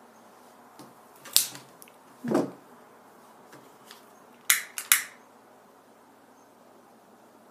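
A sharp snip as side cutters trim the excess nylon paracord, a dull knock about a second later, then three quick clicks from a long utility lighter's igniter as it is lit.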